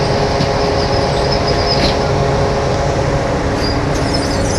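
Steady loud mechanical drone of ramp machinery beside a parked airliner, a constant hum with steady whining tones over a rushing hiss, unchanging throughout.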